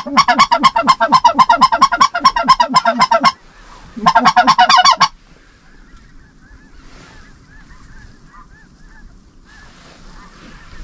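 Goose call blown hard close to the microphone: a fast, rhythmic run of loud honking clucks for about three seconds, a second short burst, then faint goose calling.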